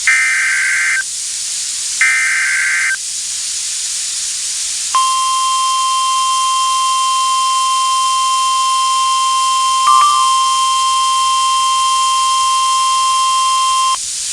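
NOAA Weather Radio Emergency Alert System SAME header: two screechy one-second data bursts a second apart, the last of its three repeats. After a short gap comes the steady weather-radio warning alarm tone, held for about nine seconds with a brief blip partway through, which announces that a tornado warning follows.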